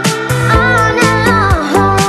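Electronic dance music with a steady kick-drum beat and a lead melody that bends downward in pitch in the middle.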